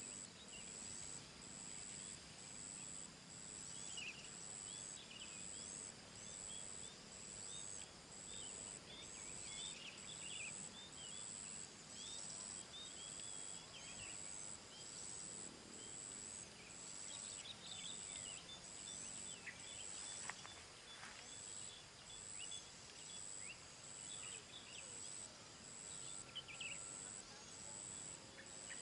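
Outdoor ambience of insects and birds: an insect's very high chirp pulses evenly about once a second, with small birds twittering in short chirps, mostly in the middle stretch.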